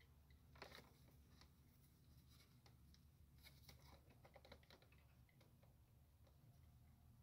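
Near silence with faint, irregular light clicks and taps of a metal socket and screwdriver extension being worked slowly on a bolt. A low steady hum lies underneath.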